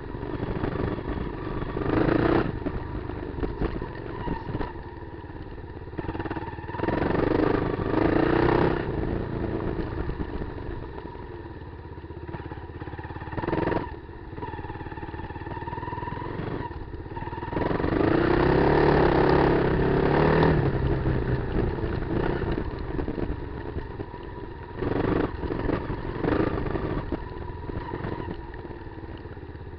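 Kawasaki KLR250's single-cylinder four-stroke engine running off road, opening up in several bursts of throttle and easing back between them.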